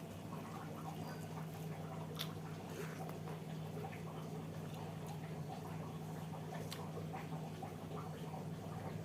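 A person eating dal and rice: soft, wet chewing and mouth sounds with a few small sharp clicks, over a steady low hum.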